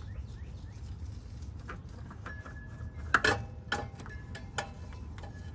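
Scattered faint clicks and a few sharp knocks, loudest about three seconds in, from gloved hands working a motorcycle's old oil filter loose, over a steady low background rumble.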